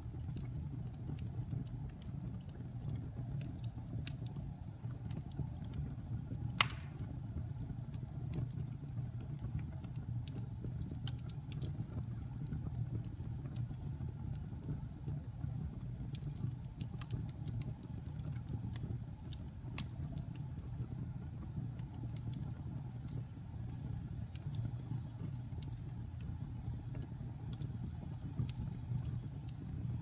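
Wood fire burning in a fireplace: a steady low rumble with scattered crackles from the logs, and one loud pop about six and a half seconds in.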